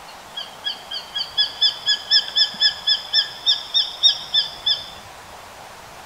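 Japanese sparrowhawk calling: a rapid run of about seventeen short, high kyi-kyi notes, about four a second, starting softer and growing louder over some four seconds.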